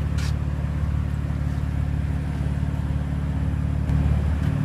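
BMW M4's 3-litre twin-turbo inline-six idling with a steady low hum, which swells briefly about four seconds in.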